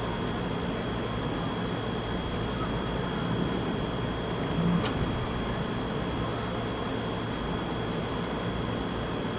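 Steady machine hum and hiss, like a fan running, with a faint constant high whine. There is a brief low thump about five seconds in.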